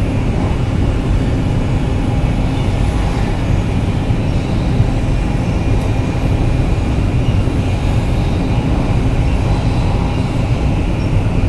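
Taiwan High Speed Rail 700T train running at speed, heard from inside the passenger cabin: a steady low rush of running noise with a faint high whine above it.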